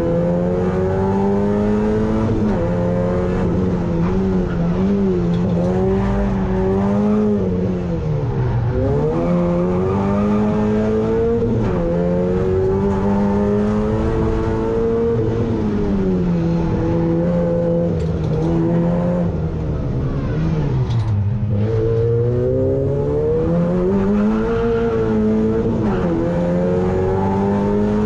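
Opel Astra GSi's four-cylinder petrol engine heard from inside the stripped, roll-caged cabin, revving up and down as the car is driven hard around a tight course. The engine note drops sharply twice, about eight and about twenty-one seconds in, then climbs again.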